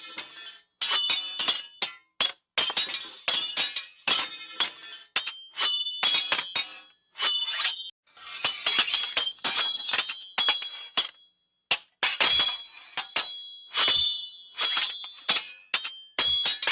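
Sword sound effects: a rapid run of metal blades clashing, each strike with a short bright ring, in quick flurries broken by brief pauses.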